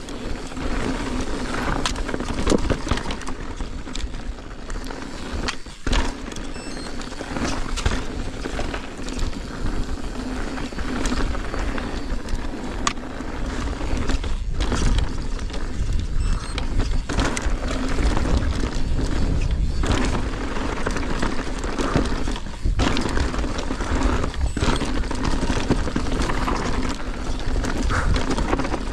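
Mountain bike riding down a rough dirt trail, heard from the rider's camera: a constant rush of wind and tyre noise with frequent short knocks and rattles from the bike over the ground.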